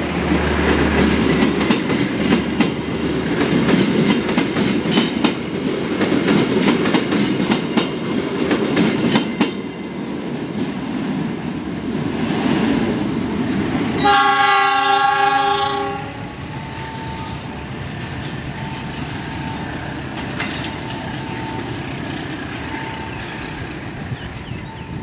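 Passenger train pulled by a CC 206 diesel-electric locomotive rolling past, the carriage wheels clattering over the rail joints, then fading as the train moves away. A little past halfway, the locomotive's horn sounds once for about two seconds, the loudest sound.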